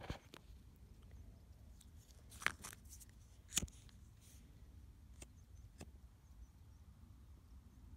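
Faint handling sounds of small objects on a stone: a few short clicks and rustles, the loudest about two and a half and three and a half seconds in, over a low steady rumble.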